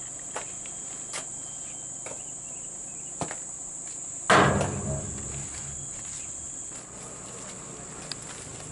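Insects shrilling steadily in a high band, with a few soft knocks from wet mud and stones being dug by hand from around a truck's wheel, and one loud thump about four seconds in.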